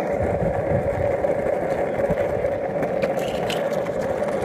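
Skateboard wheels rolling steadily over coarse asphalt, a continuous rumble.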